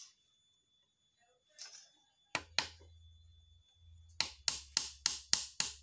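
A small hammer tapping a nail into the thin wooden slats of a cage frame: two taps about two and a half seconds in, then a run of about seven quick, even taps, roughly three a second, from about four seconds in.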